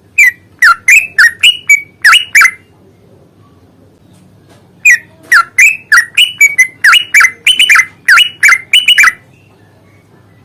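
Yellow-vented bulbul (trucukan) singing loud, quick runs of clear, downward-sliding notes: a short run of about seven, a pause, then a longer run of about thirteen.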